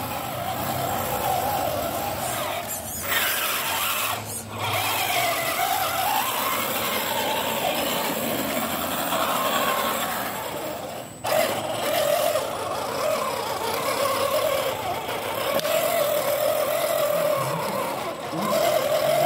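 RC scale crawler's electric motor and gearbox whining, the pitch rising and falling with the throttle as it crawls through mud, with a few short breaks.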